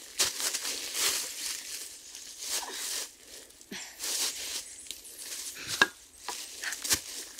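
Dry branches and leaf litter rustling and crackling as they are handled, in irregular clumps, with a couple of sharp snaps near the end.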